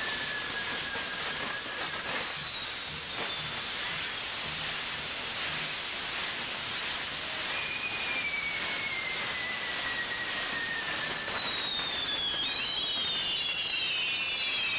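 Spinning firework wheel burning with a steady loud hiss and faint crackle. High whistling tones glide slowly downward over it, one at a time at first, then several overlapping near the end.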